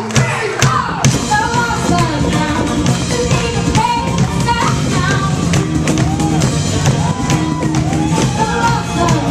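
Live band playing a song: a voice sings over held instrumental notes and a steady drum beat.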